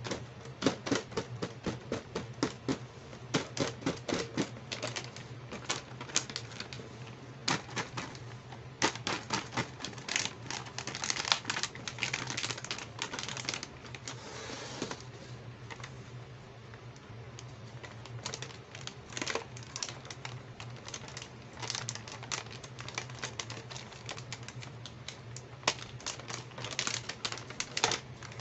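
Fingers tapping and scratching on clear plastic packaging and a plastic bag holding a toy make-up set, in quick irregular clicky taps. In the middle there are longer stretches of plastic bag crinkling, and a faint steady low hum sits underneath.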